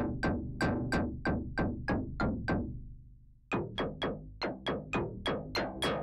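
Waldorf Blofeld synthesizer playing a wavetable patch as a fast run of short, plucky notes, about three a second, each with a quick filter-envelope decay. Past the middle the notes die away for under a second, then come back brighter as the filter cutoff is turned up.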